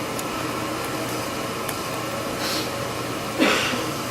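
Steady room hiss with a low hum, with a brief, louder noise about three and a half seconds in.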